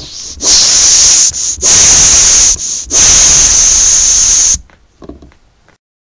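Vintage 1998 K-Mart floor tire pump forcing air out of its open hose nozzle: three loud, high hisses, each a second or more long, with short breaks between. A few faint clicks and rustles follow.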